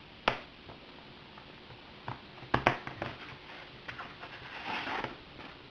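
A synthetic-leather tablet case being handled: two sharp clicks, the second a double click about two and a half seconds in, with lighter taps and a soft rustle of the cover near the end.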